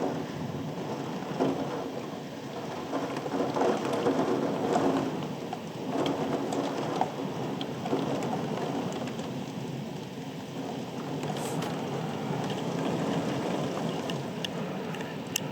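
Thunderstorm rain falling steadily after the hail has stopped, with a few sharp taps of drops here and there.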